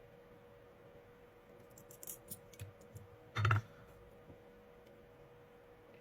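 Faint small clicks and taps of hands working on an opened 12 V lithium power-tool battery pack while its cells and circuit board are taken out, over a faint steady hum. About three and a half seconds in comes one brief, louder, humming sound.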